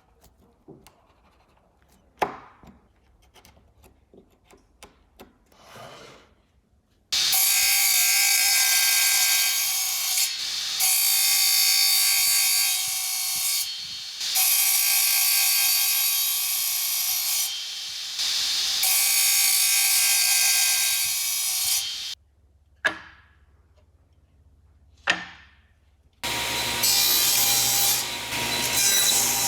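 Wood being worked by a tool in long passes of about three seconds each, a loud rasping noise with a steady high tone in it, broken by short pauses. Quiet spells at the start and near the end hold a few sharp knocks.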